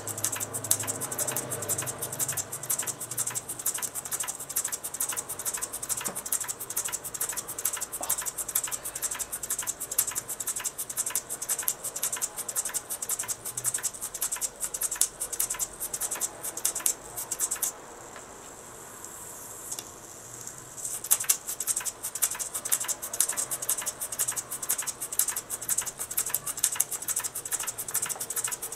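Mamod SP6 single-cylinder toy steam engine running, a rapid rattling beat of exhaust steam and moving parts. About two-thirds of the way through, the beat stops for about three seconds, leaving only a steady hiss, then picks up again.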